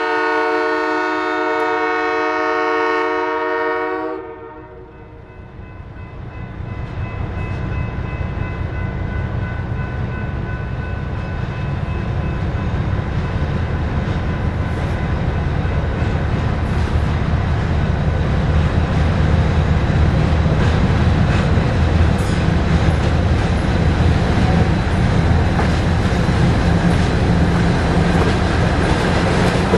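Lima LS-750 diesel switcher's air horn sounding a held chord that cuts off about four seconds in. Then the locomotive's diesel engine runs as the train rolls nearer, the rumble and rail noise growing steadily louder.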